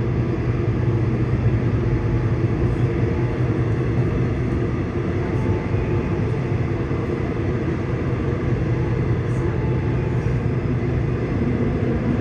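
Seoul Subway Line 6 train running between stations, heard inside the car: a steady rumble of the wheels and running gear on the track.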